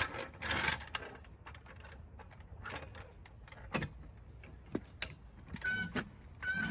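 Metal clinking and clattering of lug nuts and sockets being handled, with scattered sharp clicks. Near the end a short pitched squeak comes twice.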